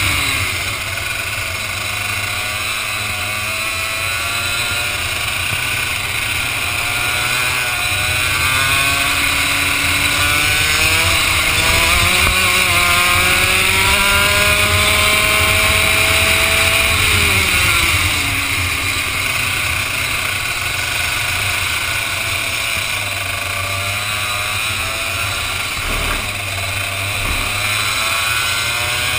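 Vortex ROK two-stroke kart engine on track, its pitch climbing steadily for about fifteen seconds as the kart accelerates along a straight, then falling sharply as the driver lifts, and climbing again near the end. A steady rushing noise runs underneath.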